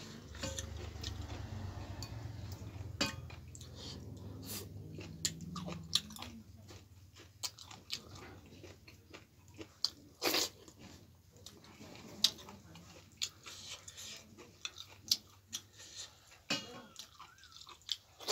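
A person chewing and eating finger-millet dhido with chicken gizzard curry, with many short wet mouth smacks and clicks.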